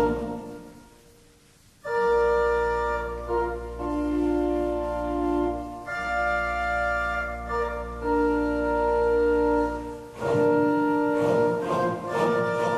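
Organ music: slow, held chords over a low bass note, changing about every four seconds. It enters after a brief hush about two seconds in, and the playing grows busier near the end.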